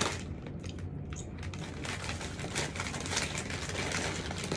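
A chip bag crinkling and rustling without a break as hands fold and work at its open top.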